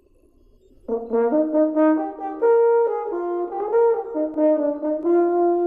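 A brass instrument playing a short tune of stepped, held notes in imitation of a whale's call, starting about a second in.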